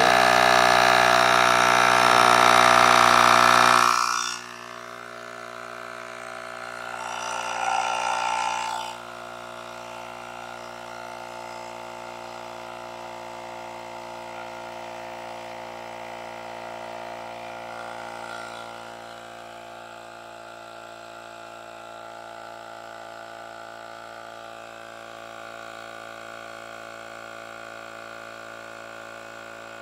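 Portable cordless tire inflator's small electric compressor running steadily while it pumps up a motorcycle tire toward a preset 25 PSI. It is loud for the first four seconds and swells again about eight seconds in, then settles into a steadier, quieter hum.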